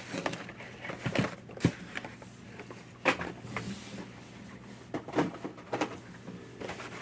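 Small objects being moved and set down on a desk: scattered light knocks and clatter at irregular intervals.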